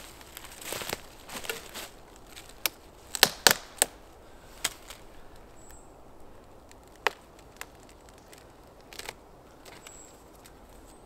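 Footsteps on dry forest litter, then a run of sharp cracks and snaps as a woody bracket fungus is broken off a tree trunk by hand; the loudest cracks come in a quick cluster a few seconds in, with a few single snaps after.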